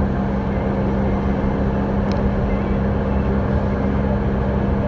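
Cargo truck's engine running steadily while cruising, with road noise, heard from inside the cab as a constant low drone.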